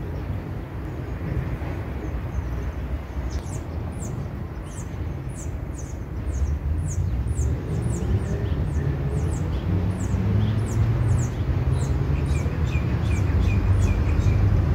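Garden ambience with a steady low rumble underneath. Over it, birds chirping: a thin high chirp falling in pitch repeats about twice a second from a few seconds in, and a short quick run of lower notes comes near the end.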